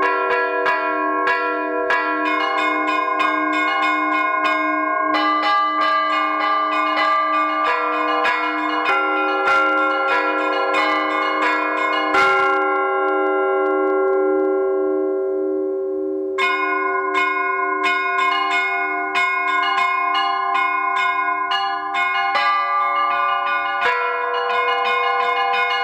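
Church bells being rung: a group of small bells chimes in a fast, busy pattern over an evenly repeated stroke on a lower bell. The small bells drop out for a few seconds about halfway through, leaving the larger bells ringing on, then come back in.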